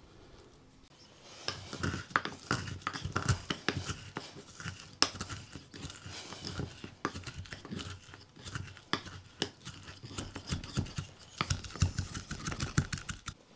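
Kitchen handling noises: irregular crackling, rustling and clicking, starting about a second and a half in and running thick until just before the end.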